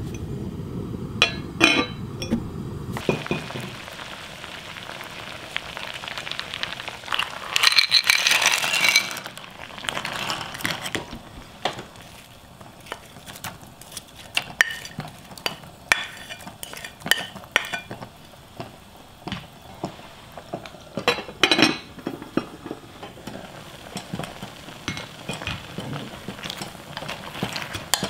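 Clams and sliced vegetables being added to a glass pot of hot water, with shells clattering and a dish and spoon clinking against the pot. Louder clattering rushes come about eight seconds in and again around twenty-one seconds. Near the end the water boils hard with a steady bubbling hiss.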